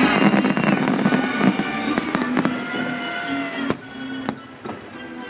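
Aerial fireworks shells bursting in a series of sharp cracks and bangs over the fireworks show's music soundtrack. The music and bursts grow quieter after about three and a half seconds, with a few isolated cracks near the end.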